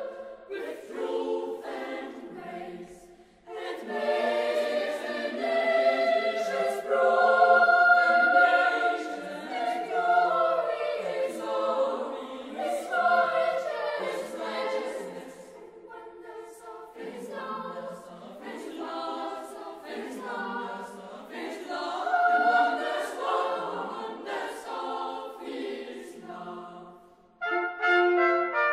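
Boys' choir singing a Christmas carol with orchestral accompaniment, in phrases that swell and fall back. Near the end a brass ensemble comes in loudly.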